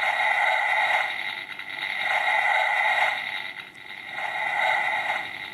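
Electronic sound effects played through the Transformers Rescue Bots Optimus Primal toy's built-in speaker, a thin mid-range sound that swells and fades three times.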